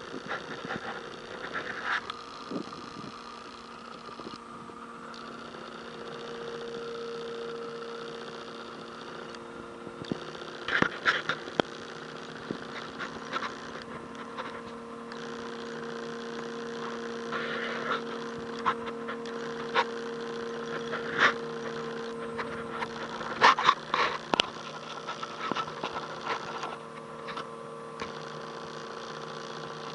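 Steady electrical machine hum with a few fixed tones, one growing stronger about six seconds in, overlaid by scattered clicks and knocks.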